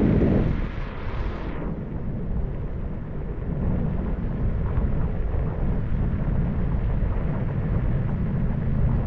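Wind buffeting the microphone over the steady low rumble of a moving vehicle, with a louder gust of hiss over the first second or two.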